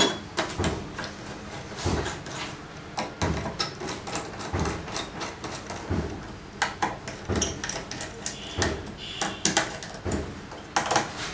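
Irregular small clicks and knocks of a laptop heat sink being seated on a motherboard and screwed down with a screwdriver.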